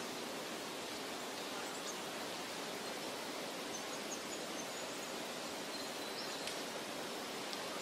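A steady, even rushing noise, like running water or an outdoor ambience, with a few faint high chirps scattered through it.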